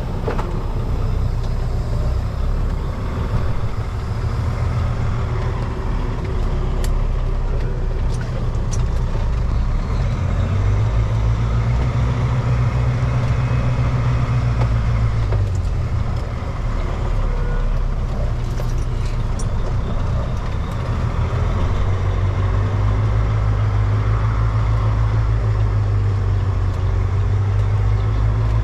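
Kenworth T660 semi truck's diesel engine running under way, a steady low drone whose pitch rises and falls twice as the revs change.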